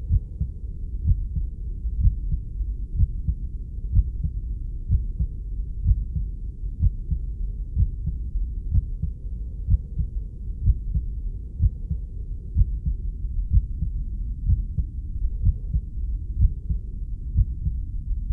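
Human heartbeat, slow and even: muffled low thumps about once a second over a steady low rumble.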